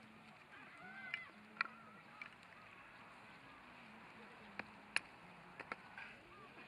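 Wood campfire crackling, with a few sharp separate pops and snaps over a quiet background, the loudest about five seconds in.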